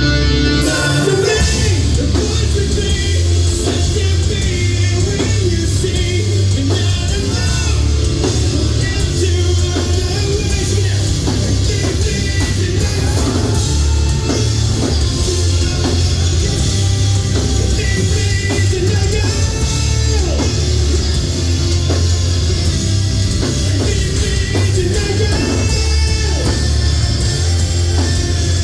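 Live heavy rock band playing loud, with drums, distorted guitars, bass and a lead singer; the full band comes in about a second in.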